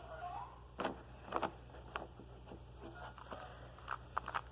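Rubik's cube being twisted by hand: a few short, sharp plastic clicks and snaps as its layers are turned, spread through a quiet stretch.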